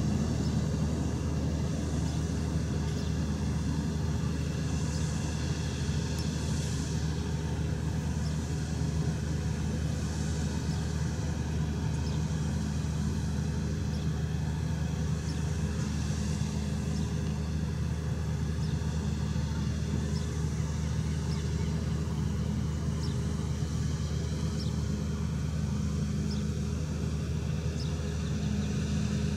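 Steady low machinery drone with several fixed humming tones, from a moored tanker's onboard machinery running at the quay.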